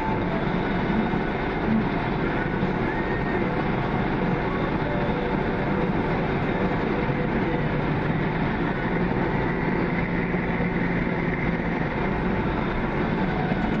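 Heavy farm machinery running steadily: a constant, unbroken engine and rolling noise, as heard close to or aboard the machine.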